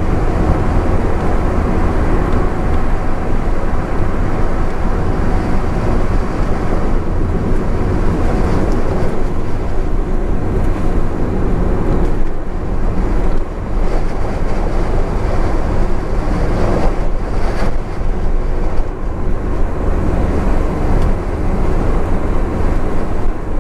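Honda S660 driving at expressway speed: steady engine, tyre and wind noise with a faint constant hum.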